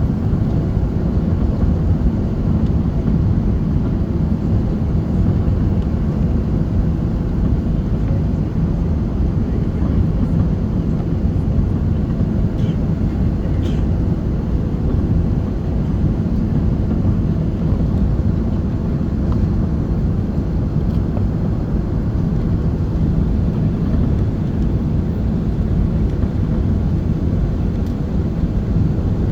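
Steady low rumble of an Airbus A380 airliner's engines and airflow during its landing, with no rise or fall in loudness.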